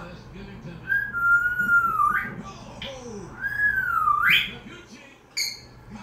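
African grey parrot whistling twice: two long whistles, each holding a tone, dipping slightly and then sweeping sharply upward at the end. A short sharp chirp follows near the end.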